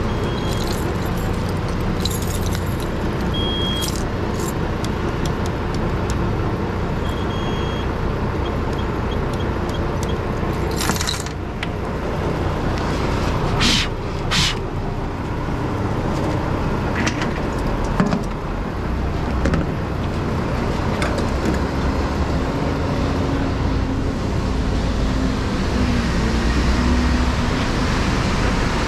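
Steady low diesel engine rumble. Over it, short electronic beeps from a fuel dispenser's keypad in the first several seconds, with keys jangling and scattered clicks and knocks.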